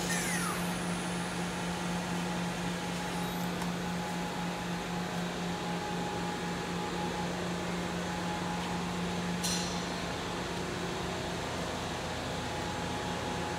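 Okuma MacTurn 350-W multi-task turning-milling center running with its spindle turning: a steady machine hum and whir. A brief whine falls in pitch right at the start, a short hiss comes about nine and a half seconds in, and the low steady hum stops about a second later.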